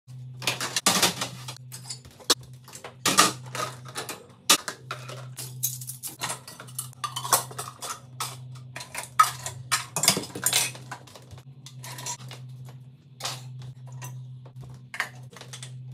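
Dishes and utensils being handled in a kitchen: irregular clinks, knocks and clatters, a few louder near the start and about ten seconds in, over a steady low hum.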